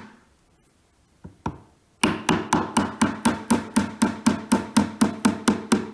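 Claw hammer tapping wooden dowels into the edge of a shelf panel. After a short lull with a single tap, it settles into a quick, even run of light taps, about four or five a second.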